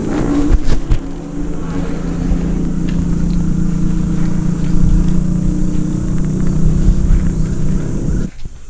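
Motorcycle engine running steadily at one pitch, cutting off abruptly near the end.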